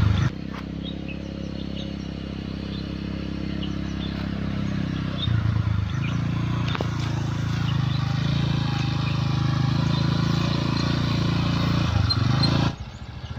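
Quad bike engine running steadily, growing louder about five seconds in and dropping away near the end.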